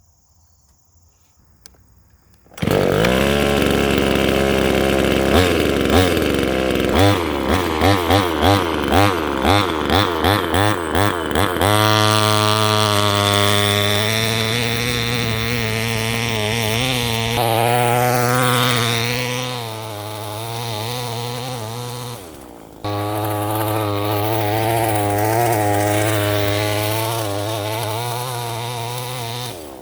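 A 25cc two-stroke chainsaw engine powering a radio-controlled truck comes in about two and a half seconds in after near silence. It revs in a quick series of repeated blips, then is held at high revs with the pitch wavering. It drops off briefly about 22 seconds in, then revs up again.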